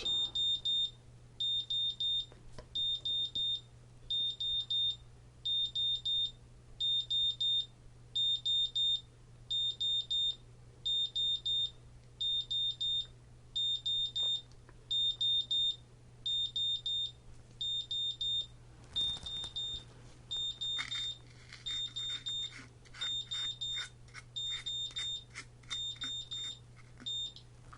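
GZAIR SA-V1000 carbon monoxide detector's buzzer alarm beeping in rapid high-pitched groups, about one group a second. It keeps sounding because the CO reading is still above its alarm point. From about two-thirds of the way in, a fainter, lower rattling pattern runs alongside the beeps.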